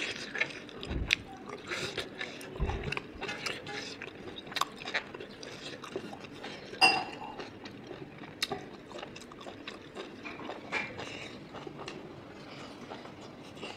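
Fingers mixing rice on a metal plate, with eating and chewing sounds: many small clicks and scrapes, and one brighter ringing metallic clink about seven seconds in. Two low thuds come about one and three seconds in.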